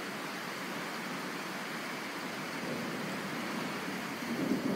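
Steady rain falling, an even hiss, with a faint low rumble swelling briefly near the end.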